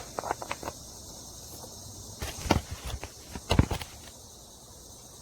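Scattered clicks and knocks of metal parts being handled while spacers and the axle bolt are fitted to a mower's front wheel, in short clusters near the start, about halfway through and about three-quarters through.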